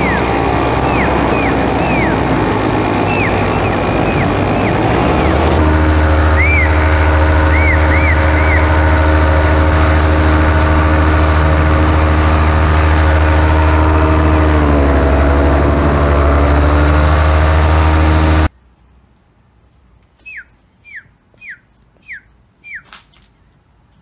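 Paramotor engine running in flight. It steps up to a louder, deeper level about five seconds in and shifts pitch briefly later, with short high chirps heard over it. The engine sound cuts off abruptly, and five short descending whistled calls follow near the end.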